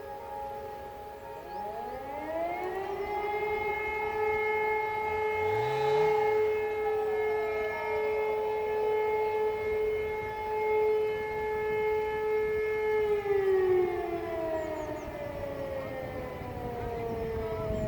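Siemens E57 motor-driven siren spinning up from a low pitch to a steady wailing tone, holding it for about ten seconds, then winding down with falling pitch. This is one blast of the fire-alarm signal, which sounds three steady tones separated by pauses.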